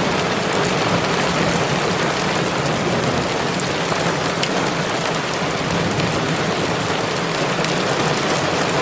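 Heavy rain drumming on a vehicle's roof and glass, heard from inside the cabin, with scattered sharp ticks of drops striking and a low steady hum underneath.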